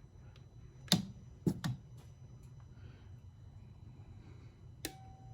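A few sharp clicks of equipment being handled, then near the end a click and a short single-tone beep from the HALO portable jump starter switching on and signalling ready.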